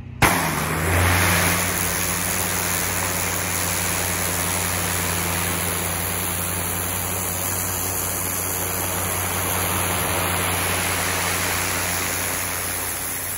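Pressure washer spraying through a turbo nozzle, its spinning jet blasting concrete: a loud steady hiss of water that starts suddenly as the spray comes on, over a steady low hum.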